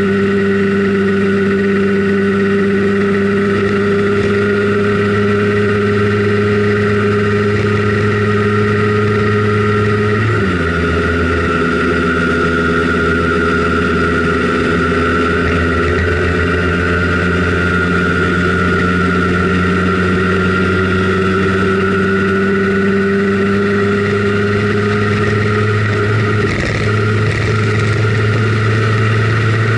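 Simson Schwalbe KR51/2 scooter's 50 cc two-stroke single-cylinder engine running under way at a steady pitch. The note drops suddenly about ten seconds in, then slowly climbs again.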